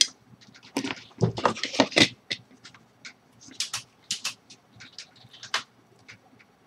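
Clicks, taps and scrapes of small parts and wires being handled while wires are fitted to the input terminals of a speed controller, in irregular clusters that are loudest between one and two seconds in.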